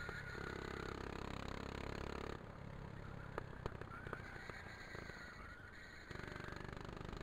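Go-kart engine running on track, heard from on board the kart as a steady low drone. The sound changes abruptly about two seconds in and again about six seconds in, with a few sharp clicks in between.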